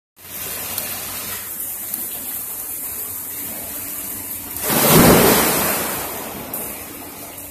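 Water from a spout in a stone wall pouring steadily into an indoor swimming pool. About four and a half seconds in, a person plunges into the pool with a loud splash that churns the water and fades over a couple of seconds.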